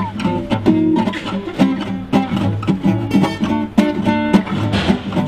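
Background music: a guitar strumming and plucking in a steady rhythm.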